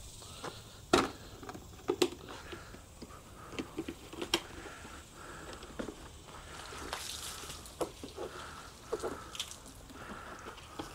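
Hand scrubbing of a soaped-up motorcycle: wet, squishy rubbing with irregular light clicks and taps.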